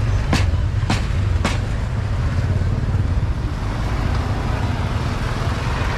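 Steady low rumble of street and vehicle traffic. In the first second and a half, a few sharp knocks come at an even pace, a little over half a second apart.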